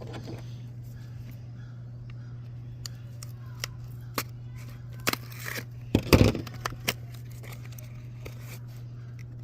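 Toy blind-bag packaging being handled and torn open: scattered crinkles and clicks, with a louder tearing rustle about five to six seconds in, over a steady low hum.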